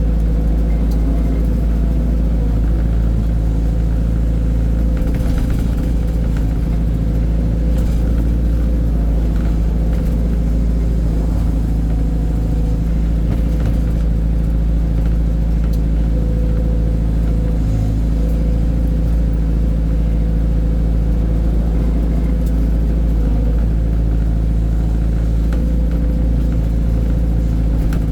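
Heavy diesel engine running steadily at a constant speed, a loud, even low drone with no revving.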